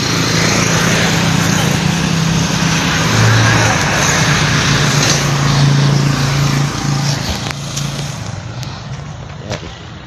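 A motor vehicle passing close by on a highway: engine hum and road noise that swell, hold with the engine note shifting in pitch, and fade away near the end.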